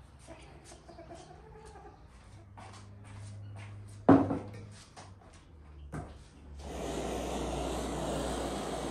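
Faint scattered clicks, a sharp knock about four seconds in, then a handheld gas blowtorch flame hissing steadily from a little over six seconds in as it is held to a raw whole chicken.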